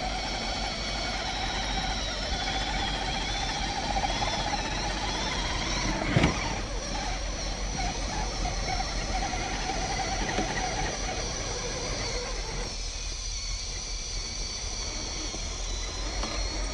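Electric motors and gearboxes of RC scale crawler trucks whining under load as one truck pulls another up a steep sandy bank. The whine wavers in pitch with the throttle, and there is one sharp knock about six seconds in.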